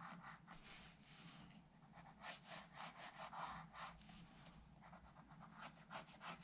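Coloured pencil scratching across drawing paper in a run of short, faint strokes as lines are drawn.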